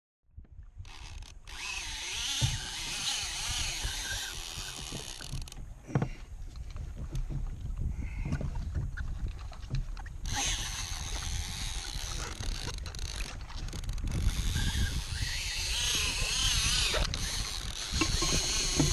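Heavy conventional fishing reel's drag buzzing as a hooked giant trevally takes line, in two long runs: one for about five seconds, then again from about ten seconds in, each starting and stopping abruptly.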